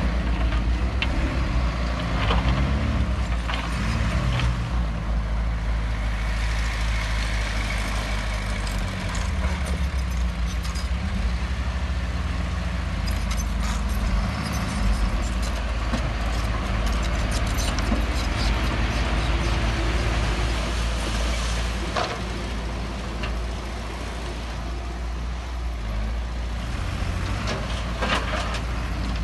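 Heavy diesel earthmoving machinery running steadily, with scattered clanks and knocks throughout.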